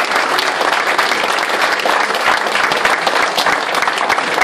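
Audience applauding at the end of a live acoustic song: a steady, dense clatter of many hands clapping.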